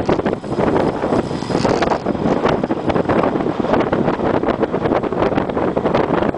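Wind buffeting the microphone of a camera carried on a moving road bicycle, making a loud, gusty rumble that flutters constantly.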